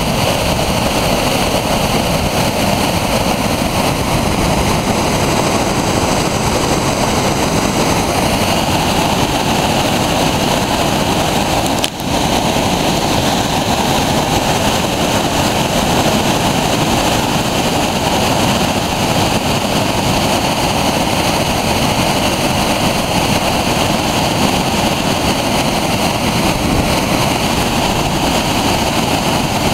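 Whitewater rapids rushing over boulders: a loud, steady wash of water, with one brief dip about twelve seconds in.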